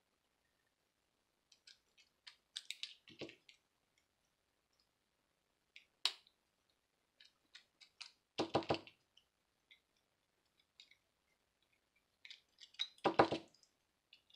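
Scattered small clicks and scrapes of a precision screwdriver working the tiny screws inside a watch, with a few short, louder clusters of clicking and rattling.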